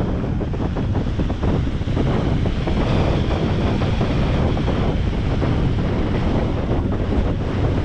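Steady wind rushing over the microphone, the airflow of a paraglider in flight, loudest in the low rumble and never letting up.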